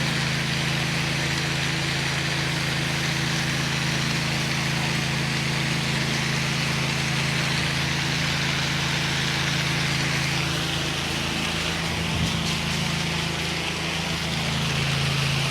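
Gas engine of an 8-gallon-a-minute pressure washer running steadily, with the hiss of water spraying from the wand as surfaces are wetted down. The engine note wavers and dips from about eleven seconds in, then steadies again near the end.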